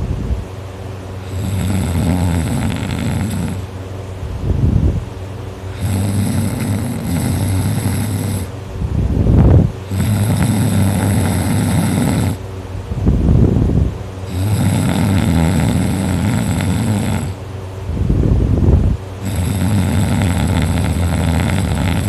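A sleeping teenager snoring loudly and rhythmically. There is a loud snore about every four to five seconds, four in all, with long hissing breaths in between.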